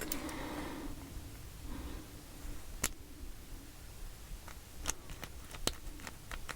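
Small lock parts being handled: a short rustle at the start, then a few sharp, widely spaced clicks as the reassembled pin-tumbler challenge lock is tried.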